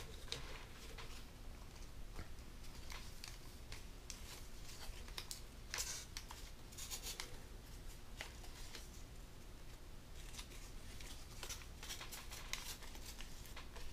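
Origami paper being opened up and refolded by hand: faint rustling and crinkling with scattered soft crackles as creases are worked, a little stronger about halfway through and again near the end.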